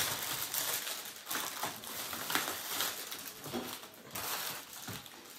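Plastic packaging bags rustling and crinkling in irregular bursts as packages are rummaged through.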